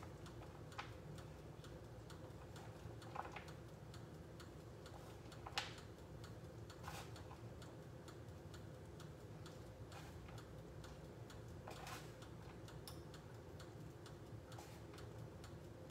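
Faint steady ticking over a low hum, with a few soft clicks and knocks from plates and food being handled on a kitchen counter.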